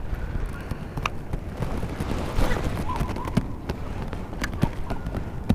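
Wind rumbling on the microphone and choppy water against a small inflatable fishing boat, with a few scattered light clicks and knocks.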